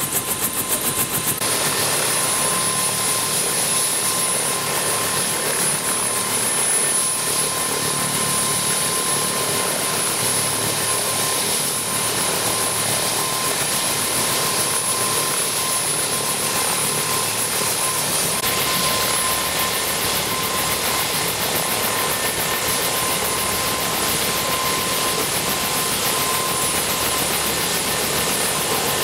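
Bell UH-1 Huey-type helicopter running on the ground with its main rotor turning: a steady rotor rush and turbine whine. A fast chopping beat is heard in the first second or so, then the sound evens out.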